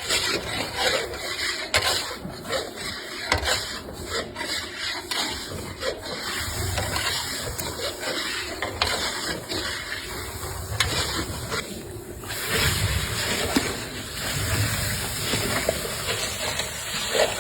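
A ladle scraping and stirring in a large pan of cooking halwa, with frequent short clicks and knocks of utensil against pan over a steady rasping noise.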